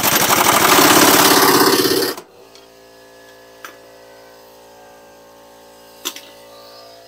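Impact wrench hammering rapidly for about two seconds as it runs a control arm bolt tight, then it stops. A faint steady hum follows, broken by two sharp clicks.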